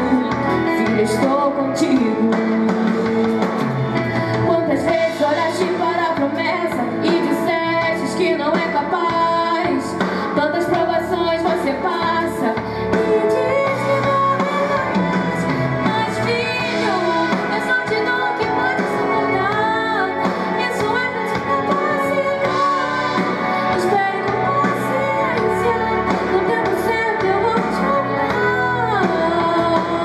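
A woman singing a Portuguese gospel worship song into a microphone over steady instrumental accompaniment.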